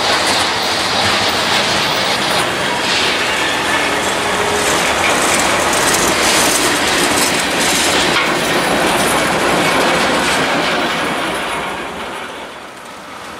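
Loaded freight cars of a CSX train rolling past close by: a steady, loud noise of steel wheels running over the rails. The noise drops away about twelve seconds in.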